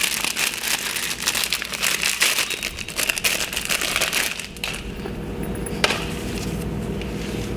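Thin plastic packaging crinkling and crackling as a new O-ring is taken out of its bag, busy for about four and a half seconds, then quieter with a faint steady hum and one sharp click about six seconds in.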